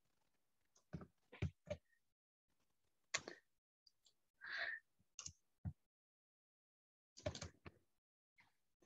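Mostly quiet, broken by a handful of short, faint clicks and knocks and a brief hiss about halfway through.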